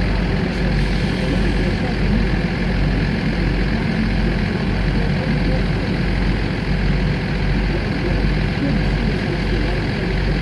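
Heavy truck diesel engine idling steadily with an even low throb.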